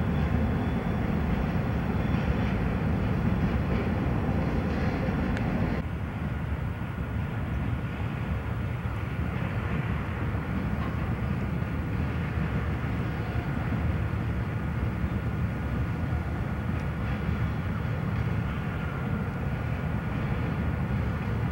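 Steady low rumble of freight trains moving through a rail junction, heard from a distance. About six seconds in it drops suddenly to a quieter rumble as a locomotive with its headlights on approaches.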